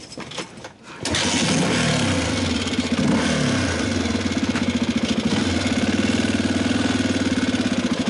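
Honda XR250R dirtbike's single-cylinder four-stroke engine comes in abruptly about a second in, its pitch dipping and rising over the next couple of seconds, then runs steadily with an even pulse. The engine's valves have just been adjusted.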